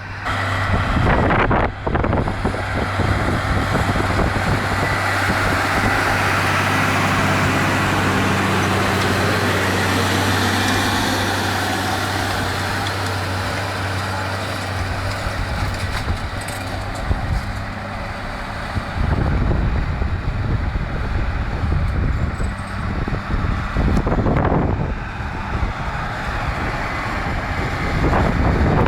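Farm tractor engine running steadily in the fields. About two-thirds of the way through, the engine hum gives way to rumbling wind buffeting the microphone.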